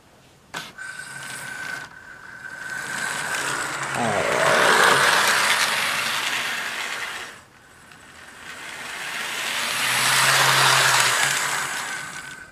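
Athearn Blue Box HO-scale model diesel locomotive running on track, its electric motor and gears growing loud twice with a dip between, where it slows and reverses.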